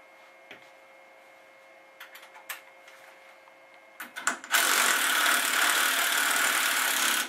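Cordless power tool running steadily for nearly three seconds, spinning the nut down onto the power steering pump pulley, then stopping abruptly. Before it come a few light clicks of the nut and tool being handled.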